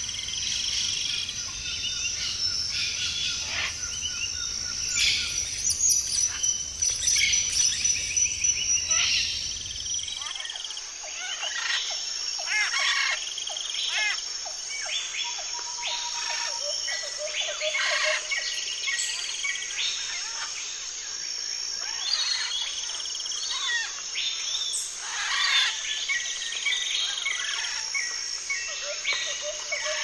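Rainforest ambience: many birds calling and chirping over a steady high insect drone. A low background rumble drops out about ten seconds in.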